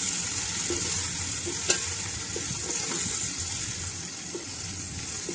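Onions and garlic-ginger paste sizzling steadily in hot ghee in a large metal pot while a spatula stirs and scrapes through them, roasting the masala. A single sharp click comes about a second and a half in.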